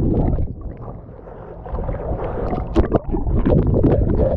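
Swimming and splashing water heard with the camera's microphone under the lake's surface: muffled, low churning noise with small knocks. It eases for about a second, then grows busier again.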